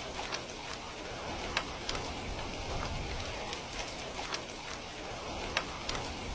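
Heavy rain falling steadily, with scattered sharper drips and drop ticks, two of them standing out about a second and a half in and near the end.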